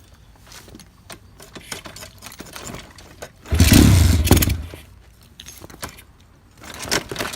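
Kickstarting a high-compression Piranha 140cc pit bike engine: light clicks and rattles of the kick lever, then a loud kick lasting about a second, about three and a half seconds in, as the engine kicks back hard instead of starting.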